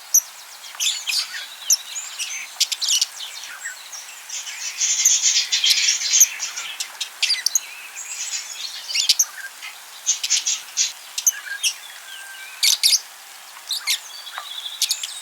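Budgerigars chirping and warbling: a run of quick sharp chirps and clicks, with a denser stretch of chatter about five seconds in.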